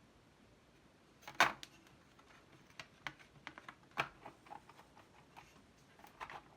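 Irregular clicks and short clatters of keys on a Commodore PET keyboard being pressed and handled, with the loudest clatter about a second and a half in and a sharp click about four seconds in.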